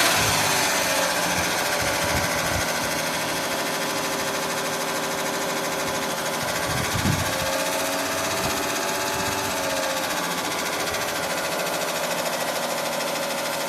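1986 Carrier Siesta window air conditioner running with its fan on, making a fast, steady mechanical clatter like something caught inside: the fan blade is rubbing against its guard because the lower mount of the condenser coil has rusted off.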